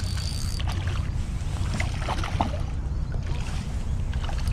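Wind buffeting the microphone as a steady low rumble, with scattered small clicks and ticks over it.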